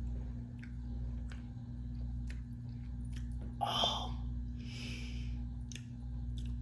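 Person eating strawberry shortcake ice cream with cake chunks in it: chewing and small mouth clicks, with a louder wet mouth sound about three and a half seconds in. A steady low hum lies underneath.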